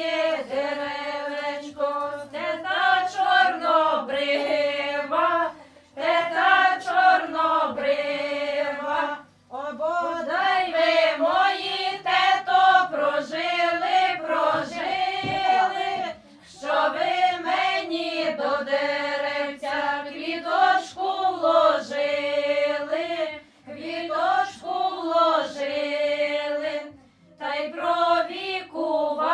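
A group of women singing a traditional Ukrainian wedding ritual song without instruments, in phrases several seconds long with a short breath pause between each.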